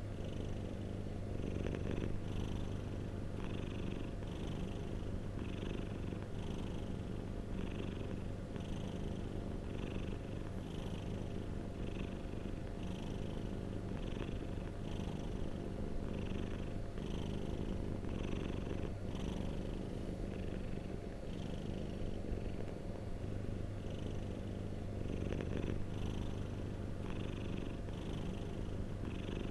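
Domestic cat purring steadily and continuously, with an even rhythm of in-and-out breaths a little under two a second.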